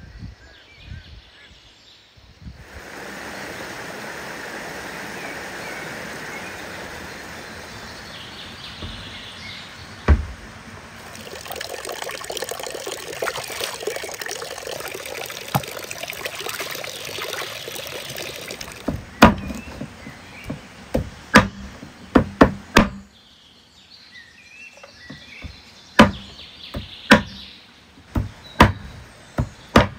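Stream water running and splashing as frogs are washed by hand in an aluminium pot, the splashing louder from about halfway through. From about two-thirds of the way in, a knife chops on a wooden cutting board: a string of sharp, loud chops with pauses between.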